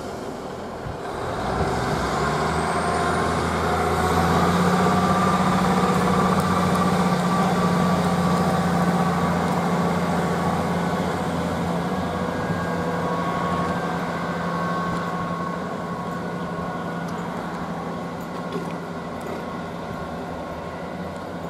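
Class 158 diesel multiple unit pulling away from the platform: its diesel engines power up about a second or two in, then run with a steady drone that slowly fades as the train draws away.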